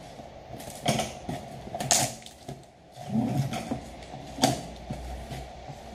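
Scissors slitting packing tape along the seam of a cardboard box: a few sharp cracks as the blades cut and the tape splits, with crinkling of tape and cardboard between them.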